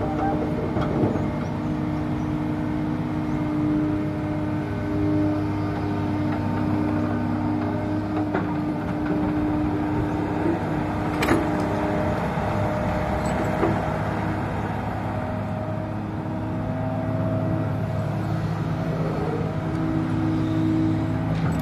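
A Komatsu PC200-6 excavator's diesel engine and hydraulics run steadily under load, with a whine whose pitch and strength shift as the boom swings and the bucket digs and dumps. A few sharp knocks come through, the clearest about 11 seconds in, as a bucket-load of sand is dropped into the dump truck's body.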